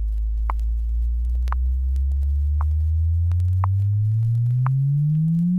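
Test-tone frequency sweep from a stereo demonstration record: a single pure tone gliding steadily upward in pitch through the low range of its 50-to-500-cycle sweep, with light clicks about once a second.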